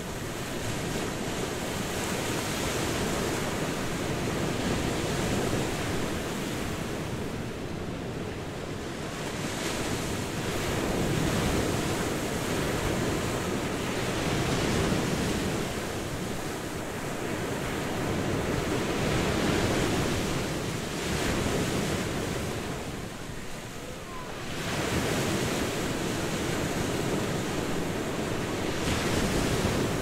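Sea waves breaking on a beach: a continuous wash of surf that swells and eases every few seconds as each wave comes in and draws back.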